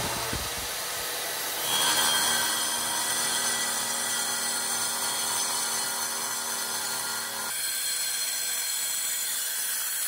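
Festool plunge-cut track saw running along its guide rail, cutting through a stone countertop slab. It makes a steady, hissing cutting noise that gets louder about two seconds in.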